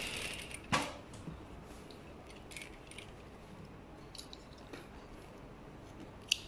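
A Zoje industrial sewing machine finishes a run of stitching and stops about half a second in. A sharp click follows, then quiet handling of fabric with small clicks, and another sharp click near the end.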